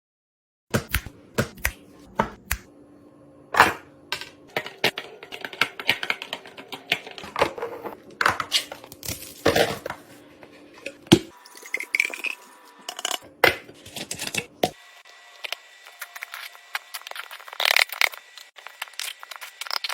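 Repeated clicks, knocks and light clinks of containers and bottles being handled and set down while a fridge is restocked, over a faint steady hum; the sound changes abruptly near the end as one clip cuts to another.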